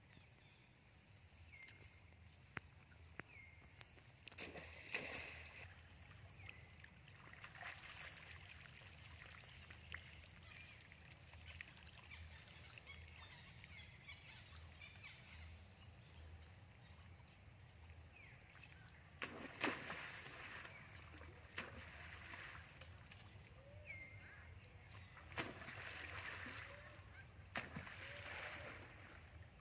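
Macaques splashing in a pond: a series of irregular water splashes and sloshes, the loudest about two-thirds of the way through.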